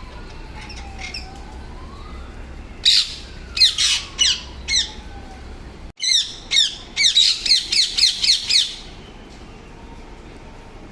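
Green parrots squawking with harsh, shrill calls. A few spaced calls come about three seconds in, then a quicker run of about a dozen calls lasting nearly three seconds.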